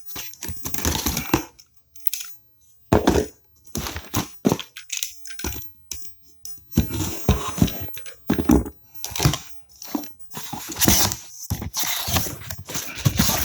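Packaging being torn open and crumpled by hand, in irregular loud rustling and tearing bursts with short pauses, as a boxed turbocharger is unwrapped.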